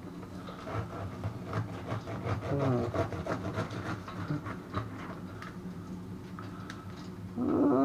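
Metal knife and fork cutting into a crisp deep-fried chunk of bacon on a ceramic plate: a run of small clicks and scrapes over a steady low hum. At the very end comes a short, louder falling sound, like a voice.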